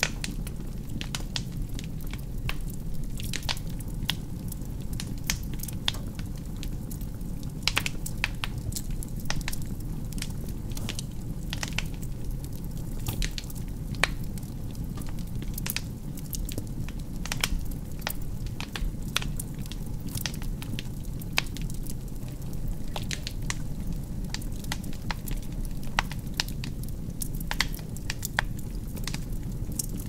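Birch logs burning in a fireplace: irregular crackles and sharp pops over a steady low rumble of flame.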